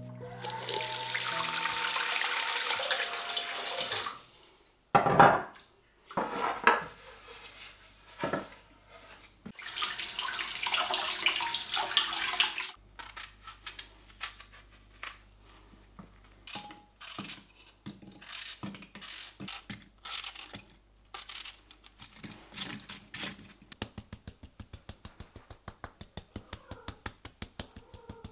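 Kitchen tap running into the sink in two spells of a few seconds each, then a knife cutting an apple: scattered clicks and cuts, ending in a quick run of chopping taps on a wooden board, about four a second.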